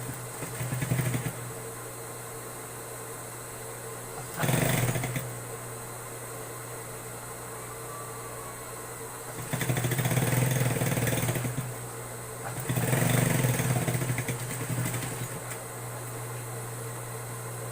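Electric sewing machine stitching a pant hem in four runs: a short one near the start, a brief one about four seconds in, then two longer runs of about two seconds each, with a steady low hum between them.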